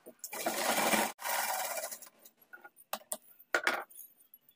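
Electric sewing machine stitching in two short runs, about a second each, then a few light clicks and scrapes of fabric and machine being handled.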